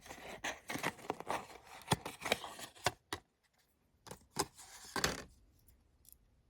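Plastic model-kit sprues and parts bags being handled: quick light clicks and rustling that stop about three seconds in, then a few more clicks a second later before it falls quiet.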